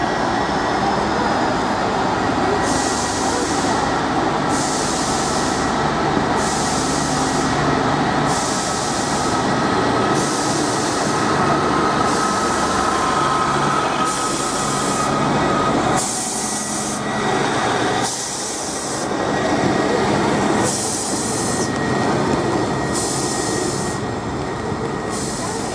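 Class 150 Sprinter diesel multiple unit on the move: the steady drone of its underfloor diesel engine with wheels running on the rails. A thin wheel squeal rises over it in the middle, and a hiss comes and goes about every two seconds.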